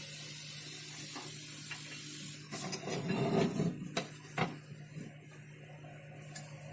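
Laser cutting machine's steady hum, with a short clatter about halfway through and two sharp clicks after it.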